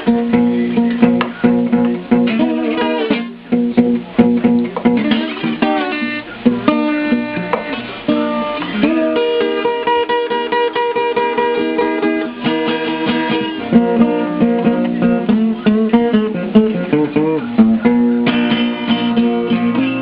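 Guitar music, plucked and strummed, with no singing.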